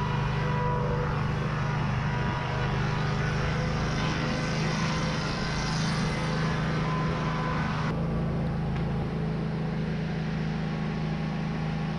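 Wood-Mizer board edger running with a steady, even drone while a board is fed through it. About two-thirds of the way in the sound turns duller.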